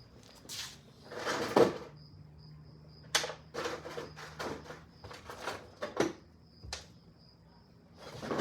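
Rummaging through tools while hunting for an Allen key: scattered clicks, knocks and clatter of metal tools being moved, with a louder scraping rustle about a second and a half in.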